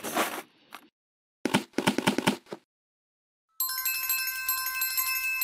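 Cartoon sound effects: a quick run of clicks about a second and a half in, then from about three and a half seconds bright, sustained bell tones ring out together like a magical chime.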